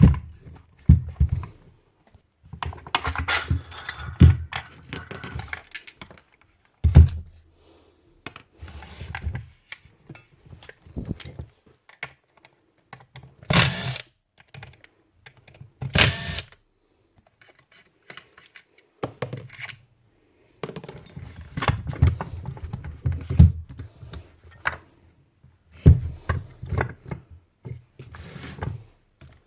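An old Ryobi router being taken apart by hand to get at its motor: scattered clicks and knocks of tools and housing parts, with bouts of scraping and rubbing and a few sharper knocks.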